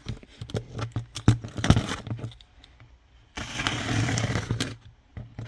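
A box being handled on a desk: a run of clicks and knocks, then a scraping rub lasting about a second and a half.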